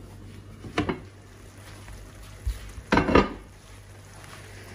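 Kitchen utensils clattering against a pan or dish: a light knock about a second in, then a louder clatter about three seconds in.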